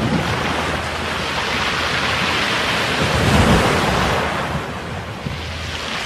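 Sea waves breaking and washing up over a pebble beach, a steady hiss of surf that swells to its loudest about three and a half seconds in and then draws back.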